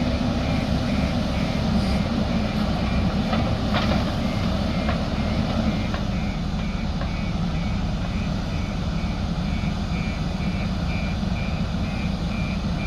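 JCB backhoe loader's diesel engine running steadily, with its reversing alarm beeping about twice a second. A few light knocks sound in the first half.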